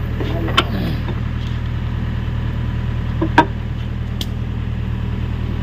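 Hyundai excavator's diesel engine running steadily at a low drone, with three sharp knocks, the loudest about three and a half seconds in.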